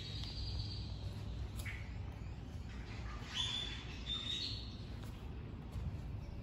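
A small bird chirping outdoors: a high whistled note at the start, and another call a little past the middle that steps up in pitch, over a steady low outdoor rumble.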